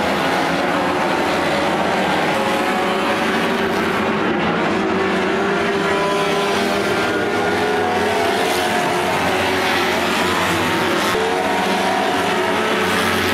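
Several 1500cc banger racing cars running hard around the track together, their engines revving at different pitches in a steady, loud mix.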